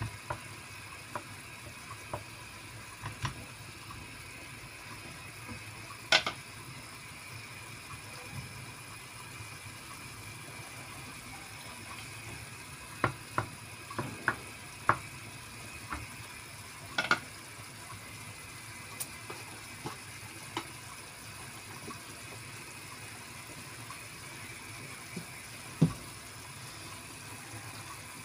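Prawns sizzling gently in white wine and garlic in a wide pan, a steady hiss, while a wooden spatula stirs them and knocks against the pan now and then, the loudest knocks about six, seventeen and twenty-six seconds in.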